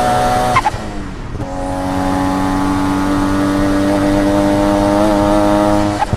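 Turbocharged Nissan RB25 straight-six engine running at high revs, held steady. About half a second in, a short sharp sound comes as the revs drop; the engine then climbs slowly again and drops once more near the end with a second sharp sound.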